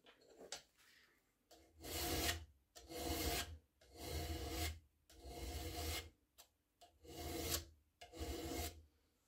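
Hand file drawn in six long strokes across a thin steel edge clamped in a bench vise, one rasping stroke about every second and a half, starting about two seconds in.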